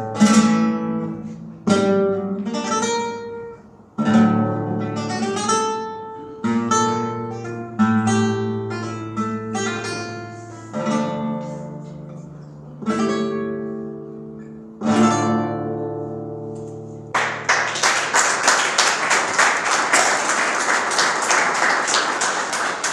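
Flamenco guitar playing the closing phrases of a farruca: struck chords and short runs, each left to ring and fade, one every second or two. About seventeen seconds in, the playing stops and applause begins.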